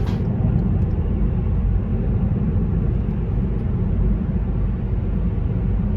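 Steady low rumbling noise with no distinct tones or strokes.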